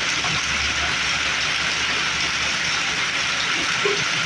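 Heavy rain falling, a steady dense hiss without a break.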